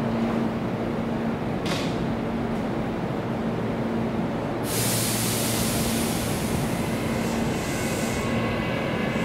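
Hankyu 8300-series electric train with a steady low hum throughout. A sudden loud hiss of air starts about halfway through, and thin high whining tones join near the end.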